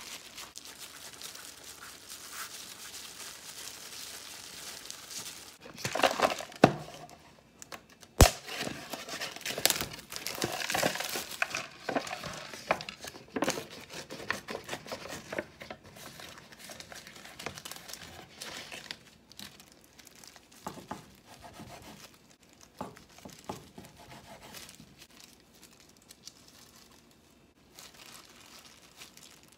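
Crinkling and tearing as the wrapping and paper lid are peeled off a cup of instant noodles, with a sharp click about eight seconds in. Later come softer strokes of a kitchen knife cutting a gimbap roll on a wooden board, with disposable plastic gloves rustling.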